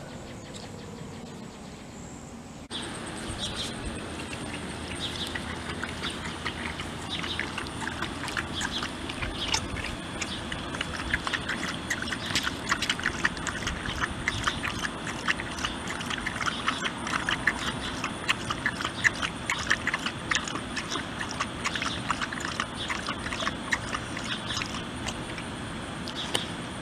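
A Rottweiler licking and lapping at a wet vinyl sheet, a dense run of quick wet clicks and smacks that starts suddenly a few seconds in after a quieter stretch.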